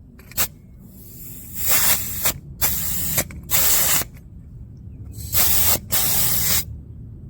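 Air hissing out of a car tyre's valve stem in several short bursts as a tyre pressure gauge is pressed on and off to read the pressure, after a small click near the start.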